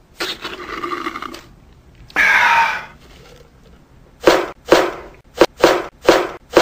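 Loud slurping of soda through a drinking straw. A louder, harsher gurgling burst follows about two seconds in, then a run of six short, sharp bursts near the end.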